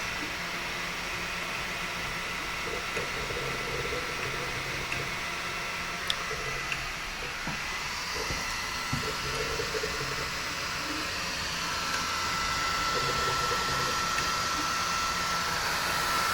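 3D printer running mid-print: a steady fan hiss with a thin whine, over stepper motors buzzing in short stop-start moves.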